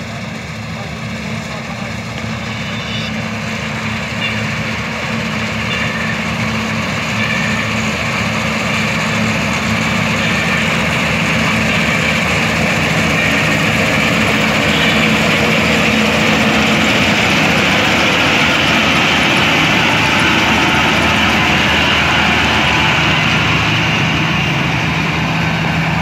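Swaraj 8100 combine harvester running under load as it cuts wheat: a steady diesel engine hum with the rush of the header and threshing gear. It grows louder over the first half as the machine comes close, then holds steady.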